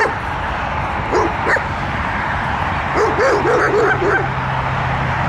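Short animal calls, each rising and falling in pitch: one at the start, two more about a second in, then a quick run of about five near the end. Under them runs a steady noisy background, joined about three seconds in by a low steady hum.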